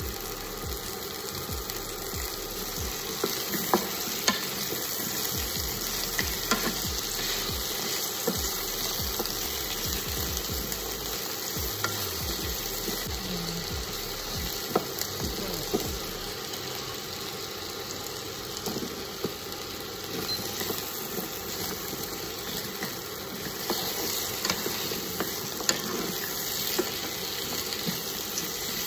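Cubed potatoes sizzling as they stir-fry in a nonstick pan, with a wooden spatula stirring and knocking against the pan now and then.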